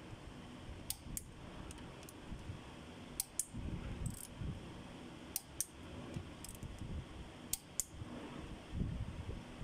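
Click-type torque wrench clicking off as connecting rod cap bolts on a Cummins QST30 diesel reach their set torque, about 80 ft-lb. There are four sharp double clicks about two seconds apart, with low knocking and handling noise from the wrench and metal between them.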